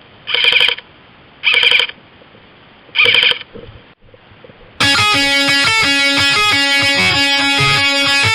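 Three short electronic beeps about a second and a half apart, then a heavy metal track with distorted electric guitar starts loudly near the end.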